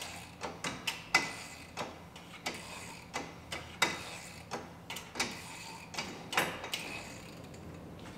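Ratchet wrench on an inner tie rod tool clicking in repeated strokes, about one every two-thirds of a second, as a loosened inner tie rod is unscrewed from the steering rack; the clicking stops near the end.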